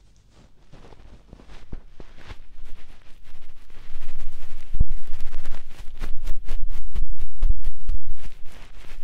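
Hands rubbing and tapping fast right on a binaural dummy-ear microphone's ears, the 'helicopter' ear-cleaning ASMR effect. It builds from soft strokes into a rapid, loud run of rubs and low thumps from about four seconds in.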